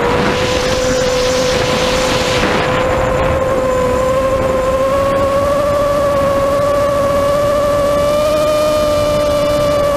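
Electric motor and propeller of a 4S Minion FPV plane droning at a steady pitch, heard through the onboard camera, with a rush of wind noise over the first few seconds. The pitch creeps slightly higher about halfway through.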